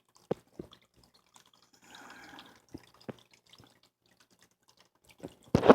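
Water dripping from a small man-made waterfall into a reptile tank's pool: a few separate drops with a short soft trickle about two seconds in. A louder burst of noise comes near the end.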